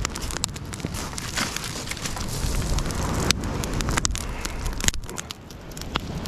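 Small wood campfire crackling with frequent sharp pops over a steady low rumble.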